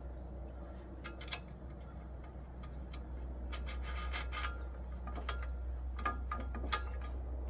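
Light metal clicks and rubbing as a carriage bolt is fitted through a Cub Cadet bagger's steel support bracket and a wing nut is turned on by hand. The clicks come irregularly, a few with a brief ring, the most in the second half.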